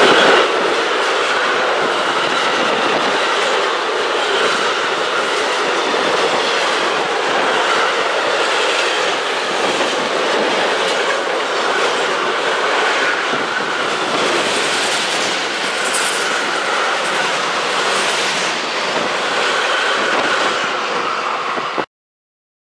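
Freight train of double-deck car-transporter wagons rolling past: a steady, loud rumble and rattle of the wagons with wheels clicking over the rails. It cuts off abruptly near the end.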